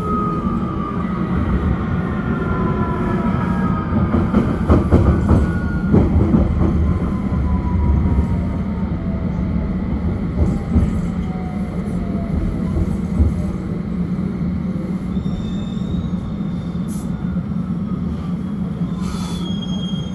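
London Underground S7-stock train running and slowing into a station, heard from inside the carriage. A steady rumble of wheels on rail runs under a motor whine that falls slowly in pitch as the train brakes. A stretch of louder clattering comes about four to seven seconds in, and a thin high squeal comes in the last few seconds.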